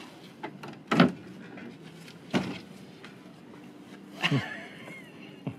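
Wooden door with a glass pane being unlatched and pulled open: three sharp clunks of latch and door, spaced over a few seconds.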